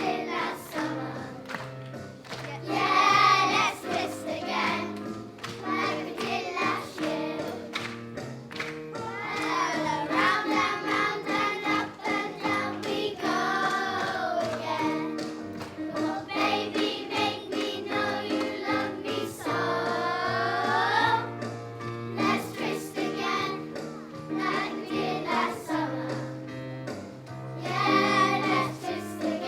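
A group of children singing a 1960s song with instrumental accompaniment.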